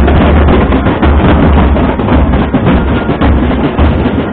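Large barrel drums beaten fast with sticks by procession drummers, a loud, dense, continuous beating with a strong deep pulse.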